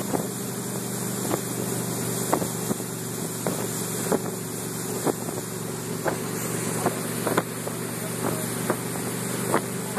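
Motorboat engine running steadily under way while towing, with the rushing of water past the hull and wake. Irregular sharp knocks come roughly once a second over it.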